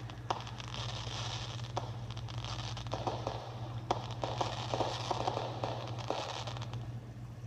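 Small fireworks crackling, with a dense run of irregular sharp pops and clicks over a steady low hum.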